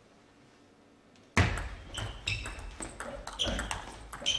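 Table tennis rally: the celluloid ball clicking sharply off the bats and table in quick succession, over a low rumble of the hall. It starts after about a second and a half of near silence.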